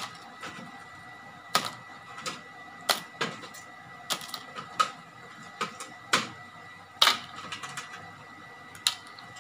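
Crab shells and a metal spatula clacking against a metal wok as cooked crabs are piled up: about ten sharp, irregular knocks and clicks spread over several seconds.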